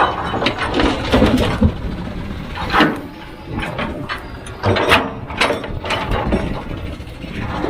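Heavy machinery at work: an engine running under irregular metallic clanking and knocking.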